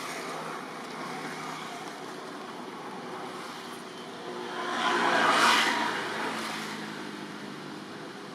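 A steady rumble of motor traffic, with one vehicle passing by: its noise swells to a peak about five seconds in and then fades.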